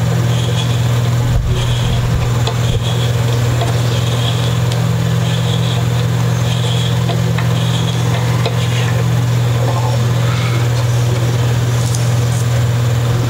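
A steady low hum throughout, over faint short scraping strokes and light clicks from a hand reamer being turned in a wooden headstock's tuner hole to deepen it for a tuner ferrule.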